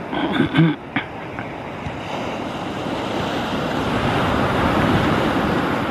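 Surf breaking and washing up a sandy beach: a steady rush of waves that swells to its loudest about four to five seconds in, with wind on the microphone. A few short, louder sounds come near the start.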